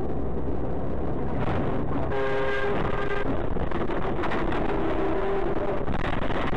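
Loud, steady vehicle running noise inside the cab, with a horn sounding for about a second about two seconds in. Near the end, as the vehicle runs off the road onto the grass verge, short knocks and rattles set in.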